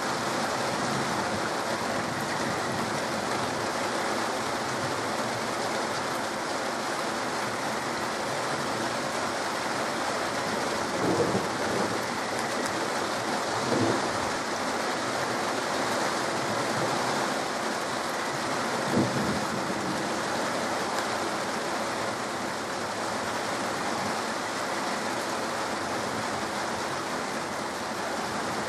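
Steady rain falling in a thunderstorm, with three short, louder thuds about halfway through.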